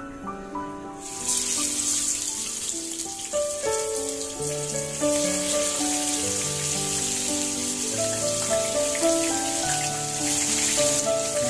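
Chicken pieces sizzling as they fry in hot oil in a frying pan, the sizzle starting about a second in and running steadily. Background instrumental music plays throughout.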